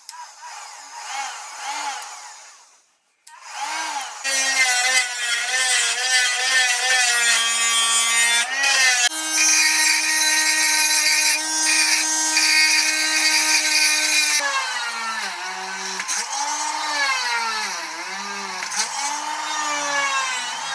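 Small 12 V DC motor of a homemade grinder running, its pitch wavering and stepping up and down as the speed is changed. It cuts out briefly about three seconds in, and a dense grinding hiss rides over it through the middle stretch.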